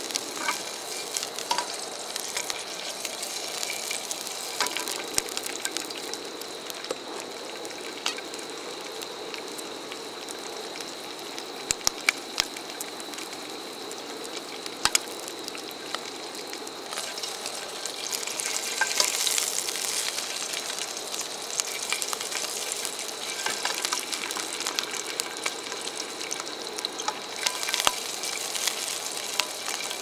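Wieners sizzling in a frying pan over a single gas camp burner: a steady frying hiss with scattered sharp clicks and pops.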